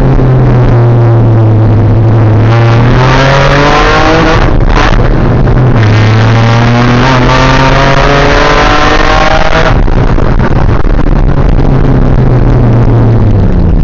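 In-car sound of a BMW 325i Compact's straight-six engine: the revs climb under hard acceleration, break briefly for a gearshift about four and a half seconds in, climb again, then drop away as the throttle is lifted near ten seconds. Otherwise the engine runs at a steadier, lower note.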